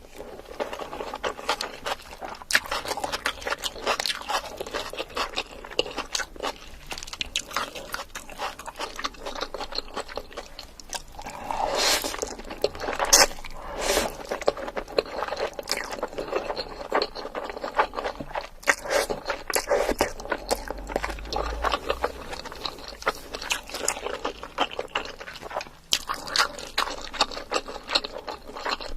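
A person chewing and biting Korean food: a dense, irregular run of short wet clicks and crackles of the mouth and food, with a few louder bursts a little before the middle.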